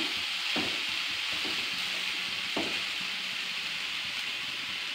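Drumstick-and-cashew thoran sizzling steadily in a black pan as the last of its moisture cooks off. A metal spoon stirs it and knocks against the pan a few times in the first couple of seconds.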